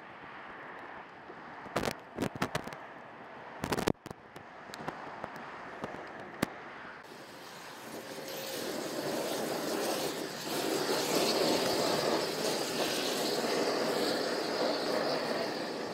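Semi truck burning: sharp pops and crackles from the fire in the first few seconds, then a louder steady rushing noise that builds from about halfway in.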